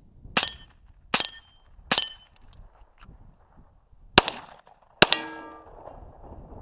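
Five gunshots: three about a second apart, a pause, then two more. Steel targets ring after the hits, the last ring lasting longest.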